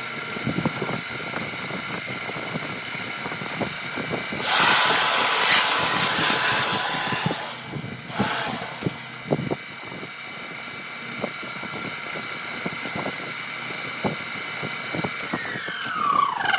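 An electric power tool's motor runs with a steady whine, with scattered light knocks. In the middle it gives a loud rushing noise for about three seconds, then a shorter one. Near the end the motor is switched off and its whine falls in pitch as it spins down.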